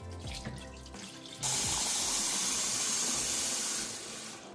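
Water running steadily into a sink, starting about a second and a half in and tapering off near the end, over background music.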